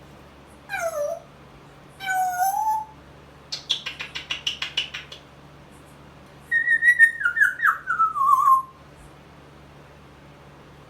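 A pet parrot whistling and making mimicked animal noises: a short falling whistle, then a rising one, a rapid run of about a dozen clicks, and a stepped, falling series of short whistled cries.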